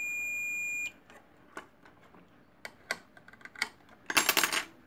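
A digital multimeter's continuity buzzer gives one steady high beep for about the first second, with the probes across a VRM MOSFET's pins and the meter reading near zero ohms: the sign of a shorted MOSFET. Then come a few light clicks of the probes on the board, and near the end a short, loud clatter.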